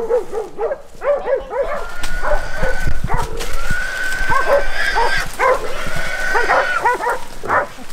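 Hog dogs barking over and over at a feral hog in the brush, and the hog squealing in several long, high cries.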